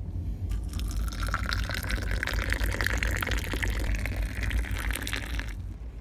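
Tea poured from a teapot into a glass in one steady stream for about five seconds, stopping abruptly near the end.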